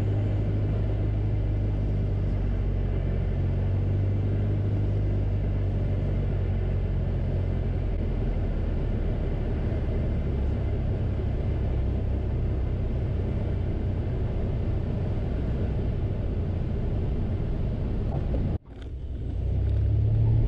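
Light single-engine airplane's piston engine and propeller droning steadily in the cabin on final approach and through the landing. Near the end the sound cuts out for a moment, then swells back in.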